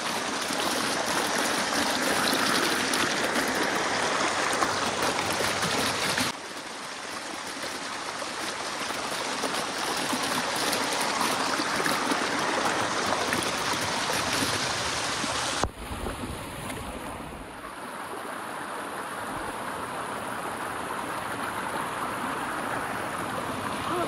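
Small waterfall rushing and splashing down over rocks, a steady noise of falling water that drops abruptly in loudness twice, about six and about sixteen seconds in.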